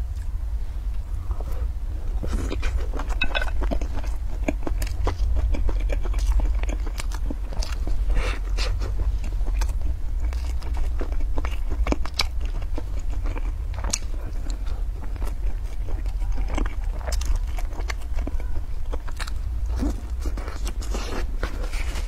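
Close-miked biting and chewing of a crisp fried pastry roll with a sausage inside: many small crunches and mouth clicks scattered throughout, over a steady low hum.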